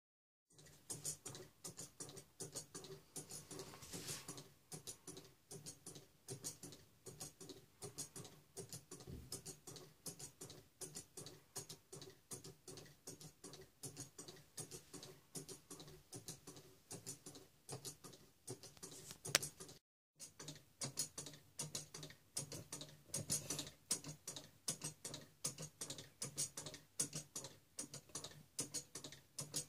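Wooden grasshopper escapement model running. Its pallets click against the teeth of the wooden escape wheel in a steady rhythm of ticks, about two to three a second, as the pendulum swings. The ticking breaks off for a moment about twenty seconds in.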